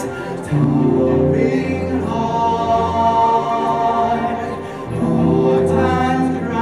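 Musical-theatre cast singing long held choral chords with a live pit orchestra. The chord changes about half a second in and again around five seconds in.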